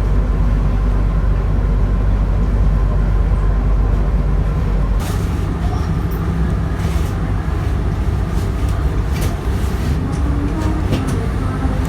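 Diesel train engine running with a steady low rumble. From about five seconds in, a scattering of metallic knocks and short hisses comes over it.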